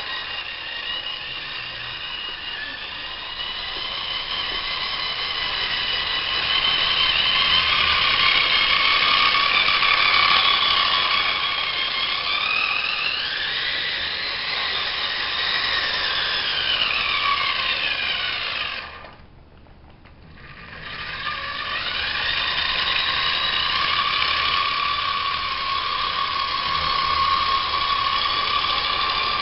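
Small electric motor of a Lima O-gauge model steam locomotive whining as it runs with two coaches, the pitch rising and falling; the locomotive is too light and its wheels slip under the load. The whine drops away for a second or two about two-thirds through, then comes back.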